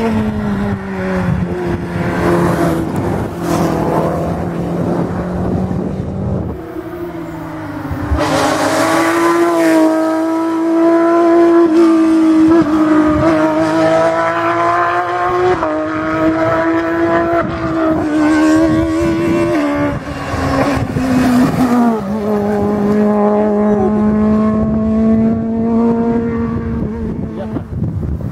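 Rally car engines at full throttle on a tarmac special stage, revving hard, with the pitch dropping sharply at each gear change. The sound gets louder about eight seconds in.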